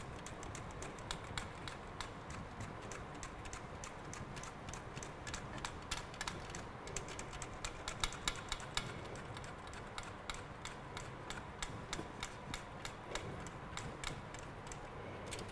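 Raw fennel being shaved thinly on a stainless steel mandoline: a rapid, uneven run of crisp clicks and scrapes as the bulb is pushed back and forth across the blade, several strokes a second.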